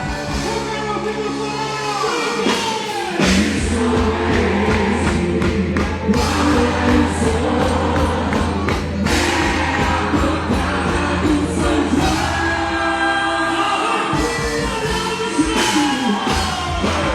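Music with singing voices over a steady bass line and percussion.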